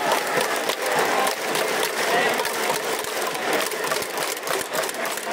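Baseball stadium crowd: a dense, steady din of many fans cheering and chattering, with a fast clatter of clapping and clicking running through it.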